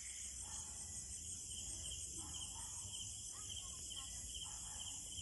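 Night insects, crickets, chirping in a steady high-pitched chorus.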